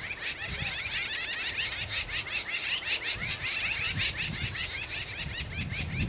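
Jungle babblers calling: a steady run of rapid, evenly repeated harsh chattering notes.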